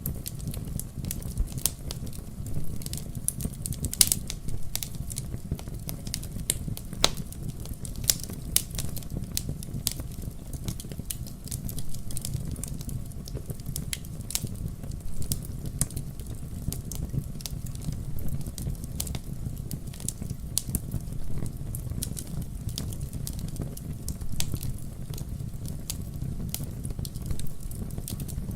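Wood fire burning in a fireplace: a steady low rumble of the flames with frequent sharp, irregular crackles and pops from the burning logs.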